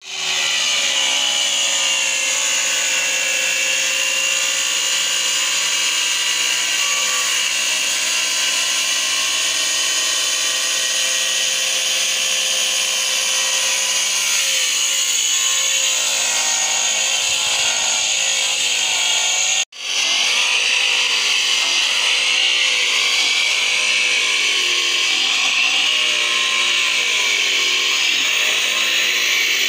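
Electric angle grinder with a diamond blade cutting stone slabs: a steady, high whine whose pitch wavers up and down as the blade bites into the stone. It breaks off for an instant about two-thirds of the way through, then the cutting goes on.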